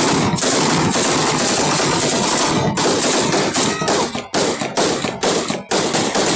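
AK-47 assault rifle firing full-auto in long bursts, with short breaks between bursts.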